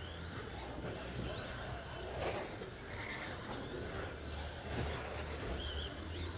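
Electric RC stock trucks racing, heard as faint rising and falling motor whines over a steady low hum.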